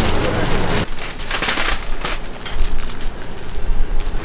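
Plastic crinkling and sticky handling noises as gloved hands pull and shape soft hotteok dough, in irregular crackles and clicks. The sound changes abruptly about a second in, as if at a cut.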